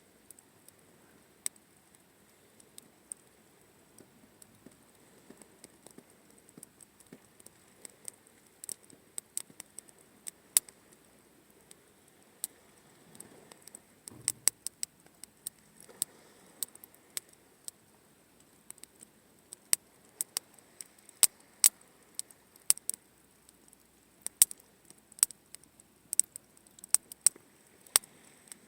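Wood campfire crackling, with sharp, irregular pops and snaps that come thicker from about eight seconds in.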